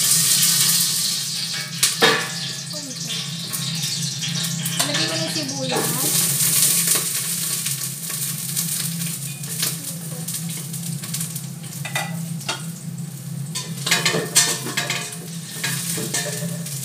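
Hot cooking oil sizzling and spattering in a stainless steel pot on a gas burner, a steady hiss, with a few sharp clinks of a metal spatula stirring against the pot.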